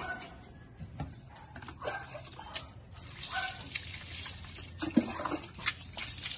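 Water running and splashing during a small dog's bath, growing louder about three seconds in, with a few brief high-pitched cries over it.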